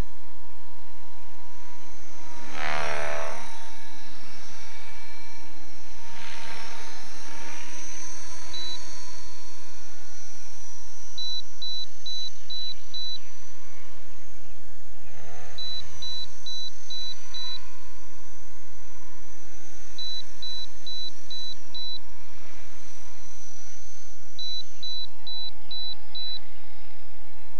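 Short high electronic beeps in quick runs of about five, repeating every four seconds or so, over a steady electronic whine. Brief wavering pitched sounds come about three seconds in, again around six seconds and near the middle.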